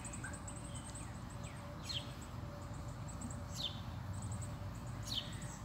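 A songbird repeating a short, high call that falls in pitch, about every second and a half, with faint very high chirps between the calls over low outdoor background noise.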